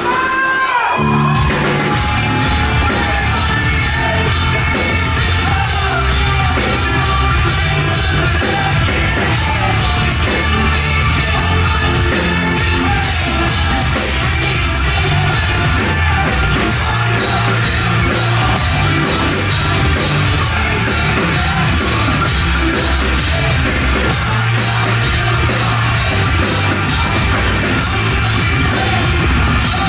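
A rock band playing live and loudly, with a lead vocal over the band. After a brief break at the very start, the full band comes back in about a second in.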